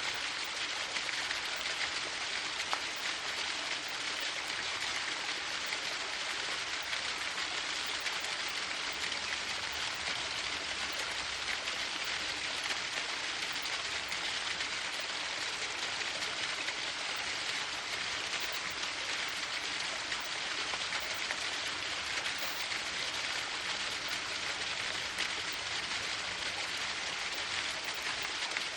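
Waterfall: water falling and splashing in a steady, unbroken hiss.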